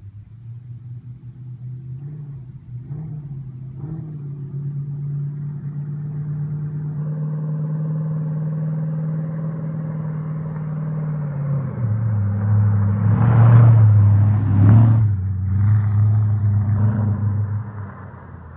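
Audi A8 D2's 3.7-litre V8 running with no exhaust fitted, unsilenced. It is blipped twice, held at raised revs for several seconds, then given two sharp, louder revs before settling back and dropping away near the end.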